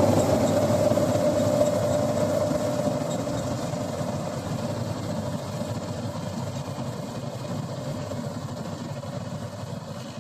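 Preet 849 combine harvester's engine running, with a steady hum, fading gradually throughout.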